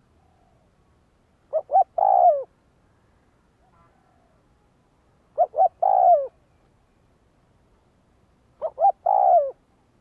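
Spotted dove cooing: three phrases about three and a half seconds apart, each two short notes followed by a longer note that falls in pitch at the end.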